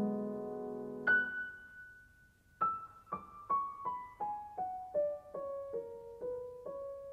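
Soft background piano music. A held chord fades out, a single high note rings about a second in, and then a slow line of single notes steps downward to a close.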